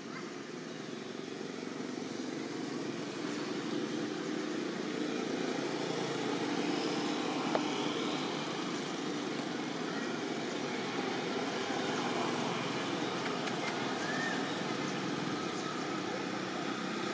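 Steady background rumble of motor vehicles, growing a little louder over the first several seconds and then holding even.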